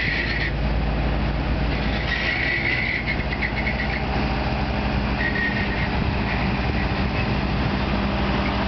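Astra HHD8 66.38 heavy truck's diesel engine running steadily as the truck drives across soft sand, with a higher whine that comes and goes.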